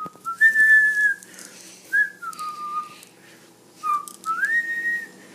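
A person whistling a short tune: several held notes, sliding up and down between them.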